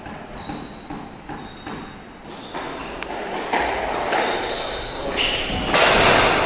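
Squash being played on a wooden-floored court: short squeaks of shoes on the floor and sharp knocks of the ball. A louder rush of noise lasting under a second comes near the end.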